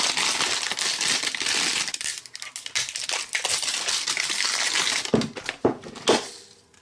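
Crinkly plastic wrapper being torn and pulled off a plastic cupcake-shaped toy capsule, then a few plastic knocks as the capsule's lid is twisted and pulled open near the end.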